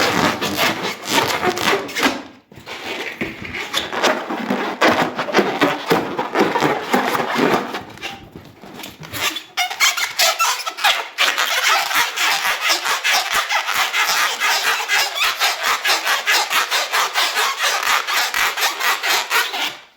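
Hands rubbing an inflated rubber balloon: a dense run of rubbing, squeaking strokes. About halfway through the strokes turn quicker and more even and lose their low end, then stop suddenly at the very end.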